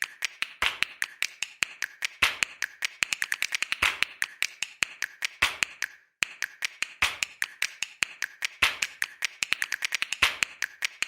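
Rapid sharp taps or clicks, several a second in uneven runs, each with a short ring; they break off briefly about six seconds in, then carry on.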